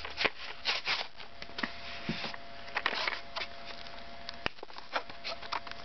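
Cardboard box flaps being worked open by hand: irregular scraping, rustling and small clicks of the card, with one sharper click about four and a half seconds in.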